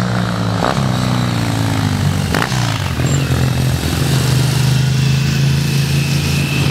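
Motorcycles riding past through a corner, their engine notes sliding down in pitch as they go by, then one engine holding a steady note.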